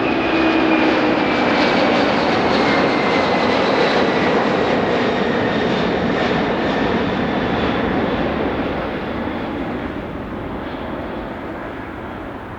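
Jet airliner's engines passing close by: a loud roar with a whine that slowly falls in pitch, fading away from about eight seconds in.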